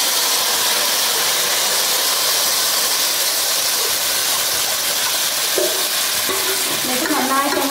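Batter poured into hot sunflower oil in a metal pan, sizzling and hissing steadily as it hits the oil.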